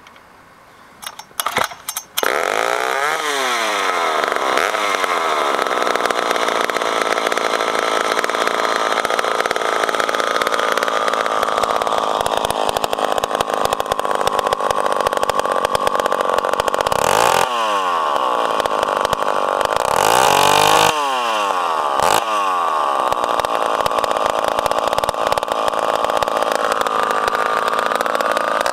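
Poulan 744 gear-drive bow saw's 74 cc 245 engine with a custom exhaust stack, firing a few times and then starting about two seconds in. It runs steadily and is revved up and let back down several times, loudest about twenty seconds in.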